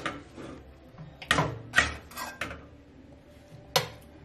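A metal serving spoon clinking against a steel cooking pot and plate while greens are dished out: a few knocks starting about a second in, then one sharp clink near the end.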